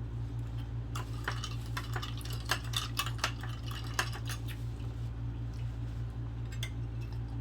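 Dishes and cutlery clinking and scraping at a meal: a scatter of short sharp clicks, thickest in the first half, over a steady low hum.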